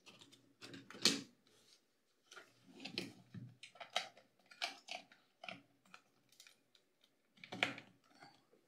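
Scattered small plastic clicks and handling rustles from a DSP A11 handheld CNC controller as a USB pen drive is plugged into its top slot.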